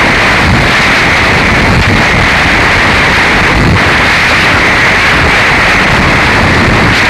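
Harsh noise music: a loud, unbroken wall of distorted static, thickest in a hissing upper-middle band over a rough, grainy low rumble, with no beat or melody.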